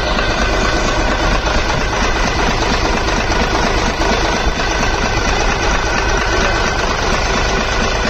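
Freshly rebuilt six-cylinder truck diesel engine running steadily at idle, its rapid firing pulses even and unbroken.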